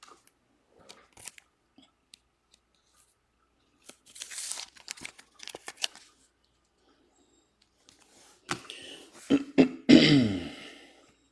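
Card pack wrapper and cards being handled: a crinkling, tearing rustle about four seconds in, then a few sharp clicks. Near the end comes a loud cough whose pitch falls.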